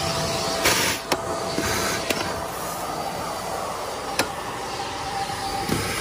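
HART Pet Glide vacuum running steadily with a loud hiss, with a few sharp clicks through it.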